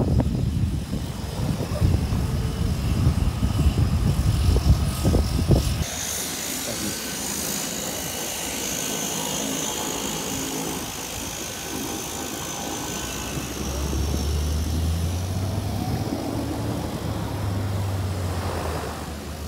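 DHC-6 Twin Otter turboprops on the apron: wind rumbling on the microphone for the first few seconds, then a steady high turbine whine that fades, and a low propeller drone that comes up in the last few seconds.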